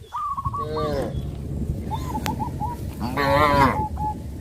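Cows mooing: a short moo about half a second in, then a longer, louder moo around three seconds in.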